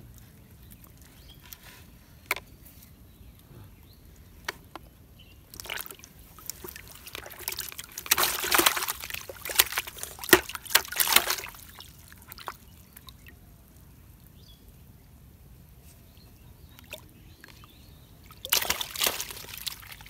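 A freshly caught fish thrashing in a plastic bucket of water, sloshing and splashing in irregular bursts, loudest in the middle and again near the end.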